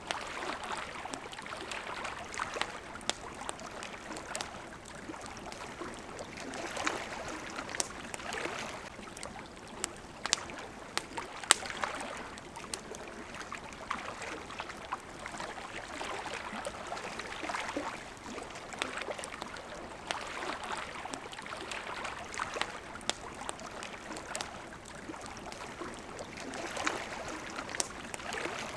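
Water washing and flowing in gentle swells that rise and fall every few seconds, with frequent sharp crackles and pops from a wood campfire.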